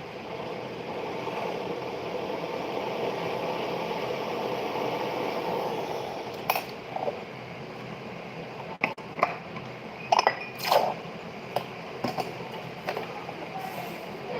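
A steady whooshing whir from a jeweller's bench tool runs for about six seconds and then stops. After that come a series of sharp metallic clinks and taps, as small metal tools and pieces are handled and set down on the bench.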